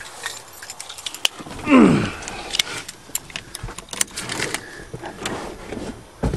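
Keys jingling among irregular clicks and rattles, with a brief loud sound falling steeply in pitch about two seconds in.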